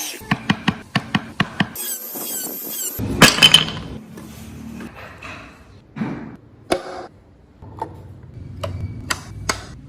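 Hand tools working wood: a quick run of about five sharp taps, a high squealing scrape around two seconds in, then a louder rasping burst and scattered knocks and rubbing.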